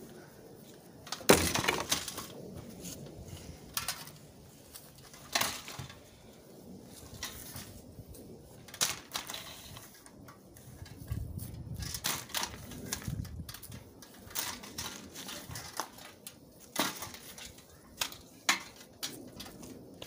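A cheap plastic box fan being smashed and broken apart. There is a loud crash about a second in, then a string of sharp cracks, snaps and rattles as the plastic housing and grille come apart.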